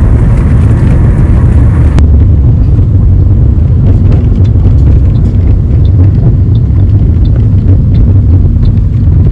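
Steady, loud low rumble of a car moving through city streets, heard from inside the cabin; the sound shifts slightly about two seconds in.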